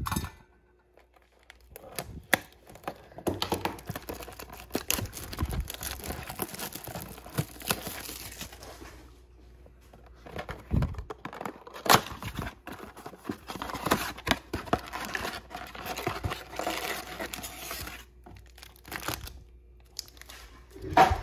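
A cardboard trading-card blaster box being torn open by hand and its foil-wrapped card packs crinkling as they are handled and pulled out, a long stretch of crackling and sharp clicks with a couple of short pauses.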